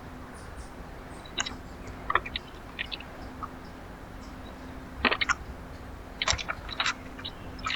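Irregular sharp clicks and taps of seed being pecked and cracked at a backyard feeder, coming in small clusters about one and a half, two to three, five and six to seven seconds in, over a faint steady hum.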